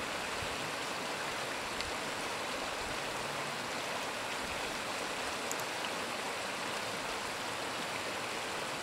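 Steady, even hiss of a snowstorm outdoors, with a couple of faint ticks about two and five and a half seconds in.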